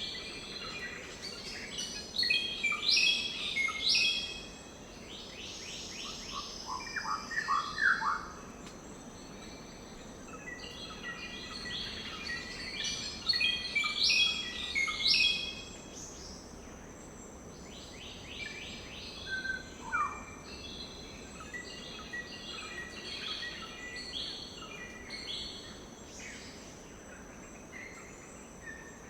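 Several birds chirping and trilling in quick runs of short notes, over a steady background hiss and a constant thin high tone.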